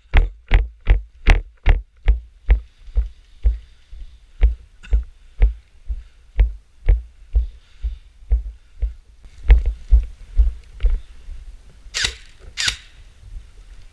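Footsteps of a player on the move, each step a dull thump through the body-worn camera, quick at first and then settling to about two steps a second. Two short hissing rustles near the end.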